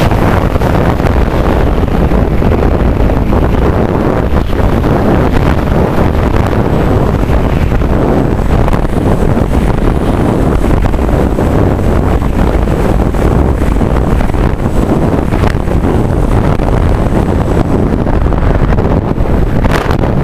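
Loud, steady rush of wind buffeting the microphone of the camera mounted on an FPV flying wing in low flight.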